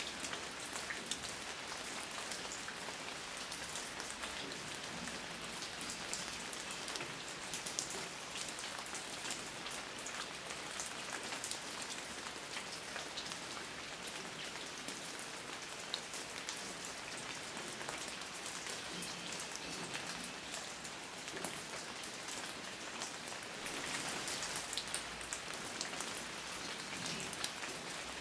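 Steady rainfall: a continuous even hiss of rain with many small drop patters scattered through it.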